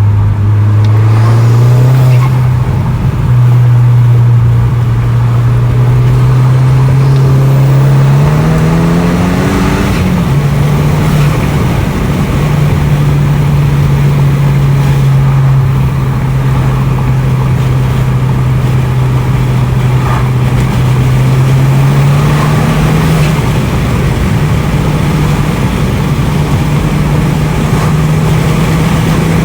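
A Volkswagen Golf's turbocharged engine running, a steady drone whose pitch steps up and down with the revs. It climbs to a peak about ten seconds in, then drops back and creeps up again near the end.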